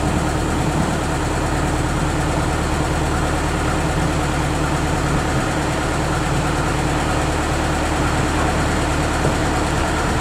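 Narrowboat engine running steadily, a constant low drone that holds even throughout.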